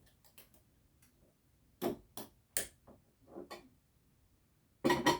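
Kitchen utensils and containers clicking and knocking as ingredients are moved: a few scattered sharp taps, then the loudest double knock near the end.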